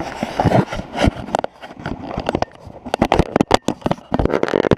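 Close handling noise from a chest-mounted GoPro being jiggled and clipped into its harness: irregular clicks, taps and rubbing right at the microphone, busiest about three seconds in.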